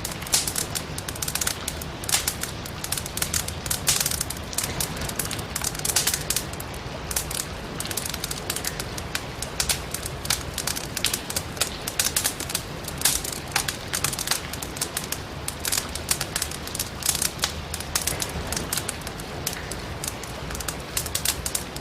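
Wood fire crackling in a fireplace: irregular sharp pops and snaps from the burning logs, several a second, over a steady hiss of rain and a low rumble of the flames.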